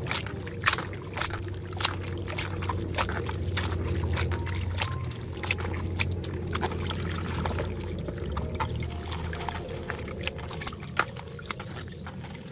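Raw octopus being kneaded and scrubbed by hand in water in a plastic colander: continuous wet sloshing and squelching, with frequent irregular sharp clicks.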